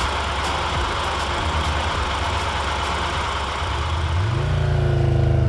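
Triumph Tiger 1200's three-cylinder engine running, with a rushing noise over it. About four seconds in the engine note rises and then holds steady at the higher pitch.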